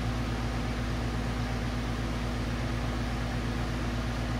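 Brazing torch flame hissing steadily on a copper fitting, over a low steady hum.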